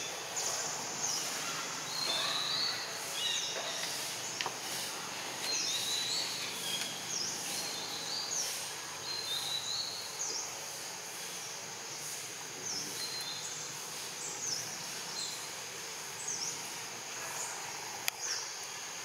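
Outdoor forest ambience: a bird calling over and over with short, high, falling chirps above a steady insect hiss, with one sharp click near the end.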